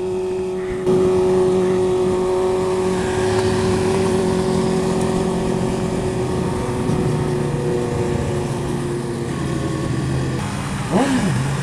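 Yamaha R15's 150cc single-cylinder engine running at a steady cruising speed while riding, its pitch drifting slowly. Near the end the revs climb and drop briefly.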